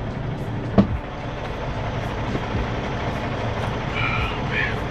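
Semi-truck's diesel engine idling steadily, heard from inside the cab with the driver's door open. There is a sharp knock about a second in and a short high squeak near the end as the driver climbs into the cab.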